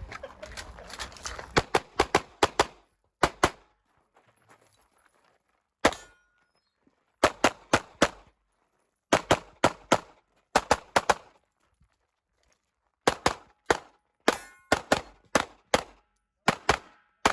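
Pistol shots fired in fast pairs and strings of three to five, broken by pauses of a second or two: a shooter running a USPSA stage, engaging targets, moving between positions and reloading.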